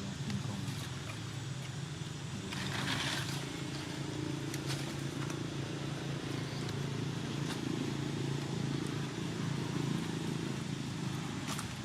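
A steady low engine hum, like a motor vehicle running, with a brief rustling hiss about three seconds in and a few faint clicks.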